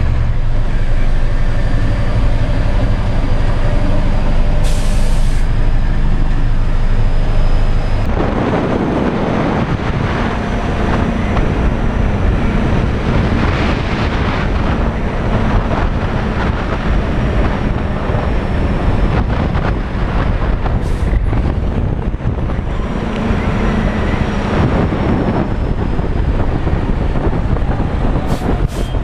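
Diesel engine of an early 1990s Kenworth logging truck running under way, heard from inside the cab along with road noise. A brief hiss comes about five seconds in, and the engine note turns rougher about eight seconds in.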